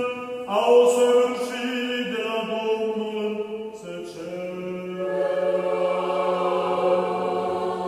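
Orthodox church choir chanting a slow vespers hymn unaccompanied, holding long notes that shift in pitch every second or two.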